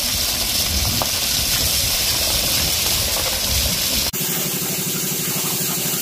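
Wheel loader running as its bucket dumps gravel onto a flatbed trailer, the engine rumbling under a rushing pour of stones. About four seconds in it cuts to a CNC plasma cutter slicing steel plate, a steady hum.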